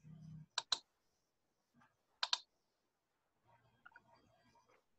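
Sharp clicks of someone working a computer: a quick pair of clicks about half a second in, then a single click a little after two seconds, with faint background noise between.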